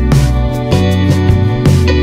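Background music: a guitar-led track with bass notes and a steady beat.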